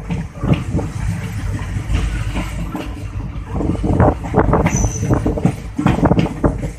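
Passenger train coach running along the track: a steady low rumble with irregular knocking and rattling from the wheels and coach body.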